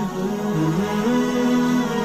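Background music: a slow melody of held notes that step up and down in pitch.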